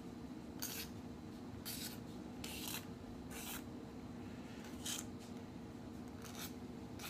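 A small hand tool scraping and trimming the edge of a plastic guitar pickguard, in a series of short, irregular strokes.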